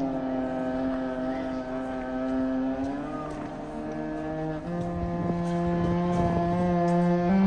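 Background music of slow, held low notes, one sliding down into the next at the start and changing pitch again about three seconds and just under five seconds in.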